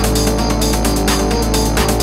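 Background music with a steady beat and a sustained bass line.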